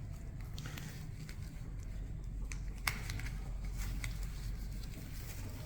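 Faint scattered clicks and light handling noises over a steady low room hum, with one sharper click about three seconds in.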